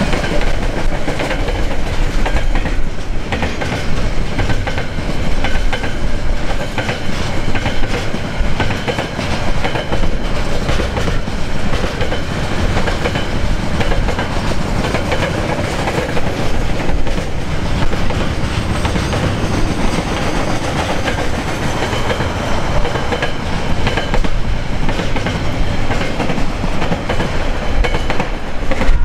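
Container wagons of a long freight train rolling past at speed: a steady rumble of wheels on rail, with wheels clicking over the rail joints.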